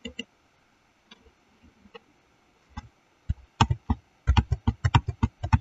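Clicking at a computer: a few scattered sharp clicks, then a quick irregular run of clicks from about three and a half seconds in.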